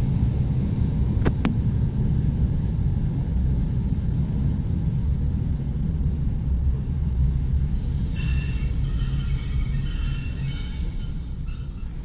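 ED9M electric multiple unit running on the line: a steady low rumble of wheels and running gear. About eight seconds in, a thin high-pitched squeal comes in with several fainter whining tones.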